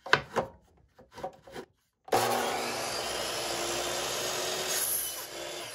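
A few short knocks, then about two seconds in a compound miter saw starts up and its blade cuts through a length of crown molding. It makes a steady motor whine under the noise of the cut, fading near the end.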